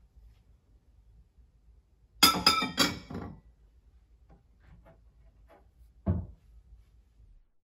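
A ceramic bowl set down onto another bowl on a cupboard shelf, a quick run of clinks about two seconds in. A few light ticks follow, then a cupboard door closes with a thud about six seconds in.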